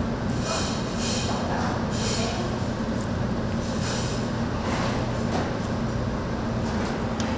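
A steady low hum, with short bursts of hiss coming and going every second or so.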